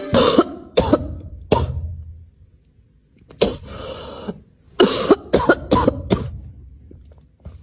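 A series of short, sharp coughs: three in the first two seconds, then a quick run of about five around five to six seconds in.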